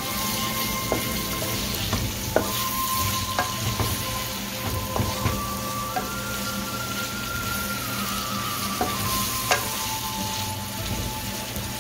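Chopped onions sizzling steadily in hot oil in a nonstick pan while a wooden spatula stirs them, with several irregular taps and scrapes of the spatula against the pan.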